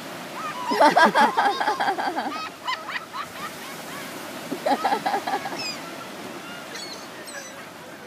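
A flock of gulls calling in two bouts of rapid, repeated calls: a loud one lasting about two seconds starting about a second in, and a shorter one around five seconds in, with a few thin single calls afterwards. Surf washes steadily underneath.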